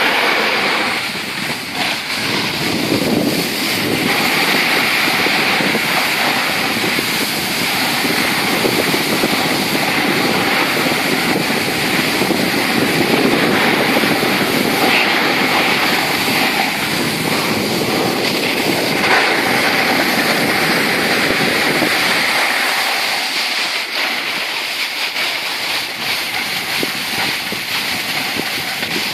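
Steady rushing of wind buffeting the microphone while moving downhill on a snowy ski slope, mixed with the hiss of snow sliding under board and skis; it eases slightly toward the end.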